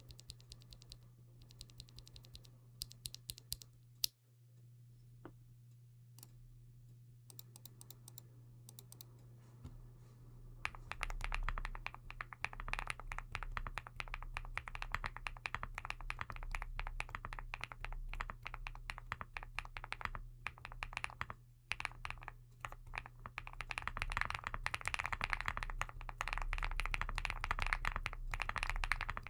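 Typing on a Weikav Nut65 mechanical keyboard with Bsun Maple Sugar linear switches, a poppy, thocky key sound. Light, scattered key presses for about the first ten seconds, then fast continuous typing that is louder, over a steady low hum.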